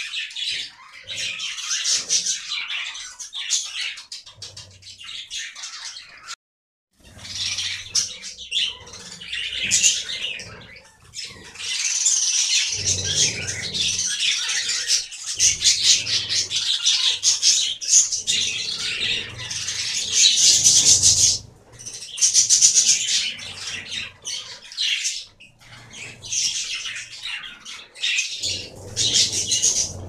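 A flock of budgerigars chattering continuously, with rapid chirps and warbles that overlap. The sound cuts out briefly about six and a half seconds in.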